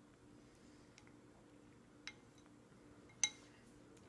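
Light clicks of a plastic baby spoon and plastic suction bowl knocking together: a small click about two seconds in and a sharper, louder one just after three seconds, over faint room tone.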